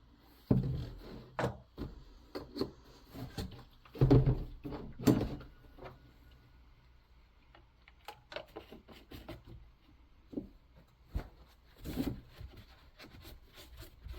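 Irregular knocks, clunks and scrapes of a chainsaw and fuel containers being handled while the saw is refuelled, loudest about four to five seconds in. The engine is not running.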